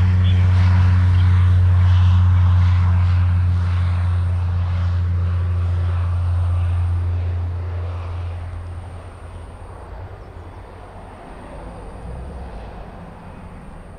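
Cessna 208 Caravan single-engine turboprop at takeoff power, its propeller giving a loud, steady low drone with a higher engine whine above it. The sound fades away after about seven seconds as the plane climbs out.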